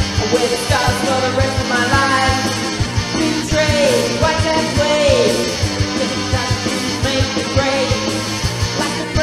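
Background music with a steady drum beat and sliding melodic lines over it.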